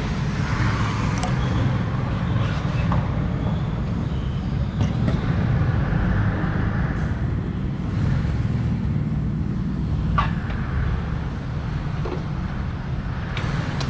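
BMW 330e's engine running steadily at idle, breathing through a newly fitted MST aftermarket air intake, with a constant low rumble.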